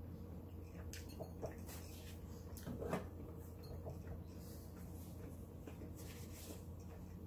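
Quiet chewing and small mouth sounds of a man eating pizza, with a few faint clicks, over a steady low hum.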